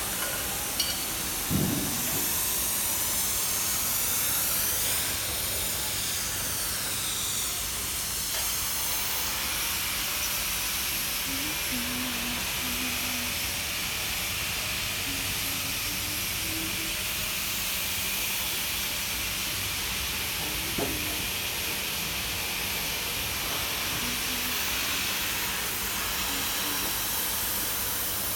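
5 hp air-cooled condensing unit with a Bitzer compressor running: a steady rush of fan air over a low, steady hum, with a short knock about one and a half seconds in.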